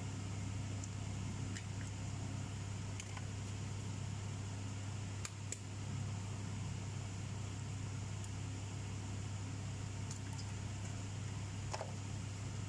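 Steady low hum of a running household machine with an even hiss over it, and a few faint, sharp clicks scattered through.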